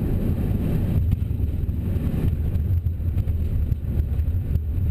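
Steady low rumble in the cockpit of an Airbus A330-300 rolling out on the runway after touchdown, with a few light bumps from the wheels.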